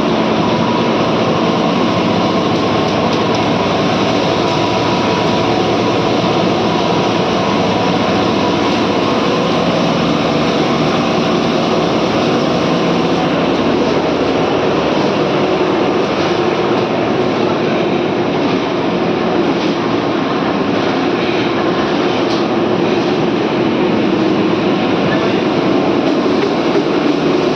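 PP plastic scrap washing machine running: a loud, steady mechanical din of motors and churning machinery, with a few steady hums in it.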